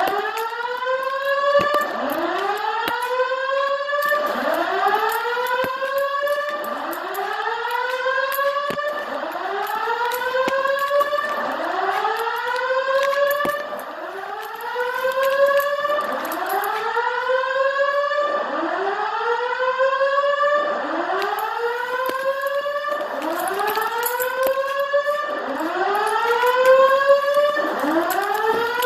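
Simplex voice-evacuation fire alarm speakers sounding a whoop tone: a rising sweep repeated about once a second, with no break.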